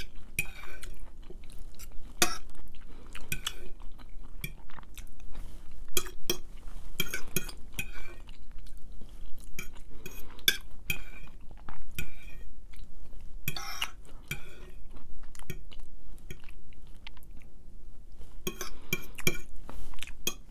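A metal fork scraping and clinking against a square plate in irregular strokes as leftover food is gathered up, with chewing between the strokes.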